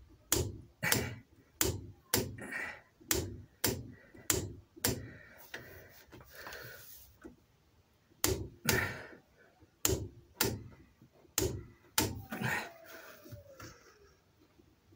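Torque wrench on a wheel nut clicking sharply and repeatedly as it is pulled to its 40 ft-lb setting, about one to two clicks a second with a short lull partway through. A short falling squeak sounds near the end.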